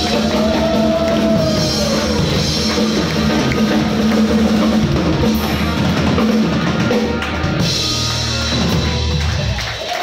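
Live rock band playing: drum kit, electric bass guitar and keyboards together, loud and steady. The bass and drums stop just before the end.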